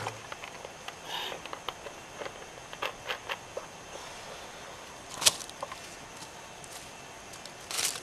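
Scattered light crackles and clicks of handling and movement on dry leaf litter, with one sharp knock a little over five seconds in, then footsteps crunching through dry leaves and twigs near the end.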